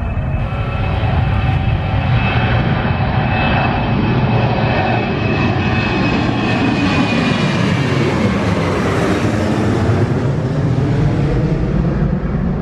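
Twin-engine narrow-body jet airliner climbing out at takeoff thrust and passing overhead: a loud, steady engine noise with a whine that drops in pitch as the jet goes over, about halfway through.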